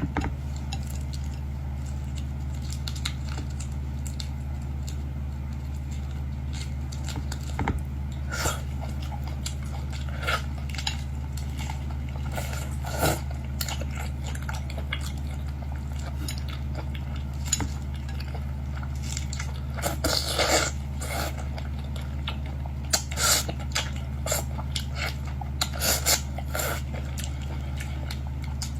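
A person chewing and biting into boiled seafood, with scattered short crunches and clicks, over a steady low hum.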